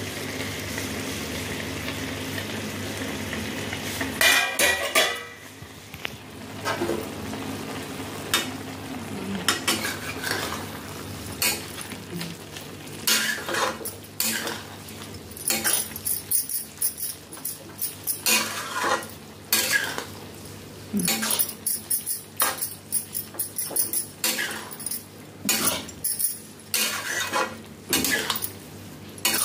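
A metal spatula stirs cooking turnip and greens in a steel kadhai, scraping and clinking irregularly against the pan. A steady sizzle runs for the first few seconds, and a loud metal clatter comes about four seconds in.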